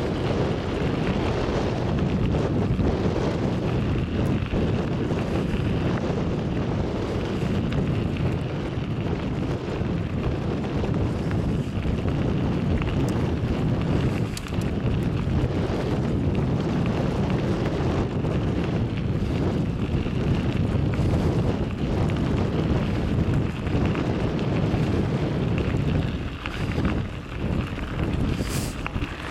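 Wind buffeting the microphone over the steady rumble of a moving vehicle, as heard from its open window; the noise eases and wavers a little near the end.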